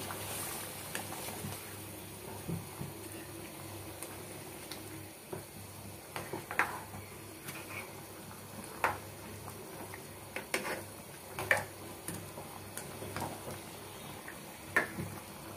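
Red plastic spatula stirring a pan of chicken and potato curry, knocking and scraping against the pan in sharp taps every second or two, over a steady bubbling of the curry as it simmers in its added water.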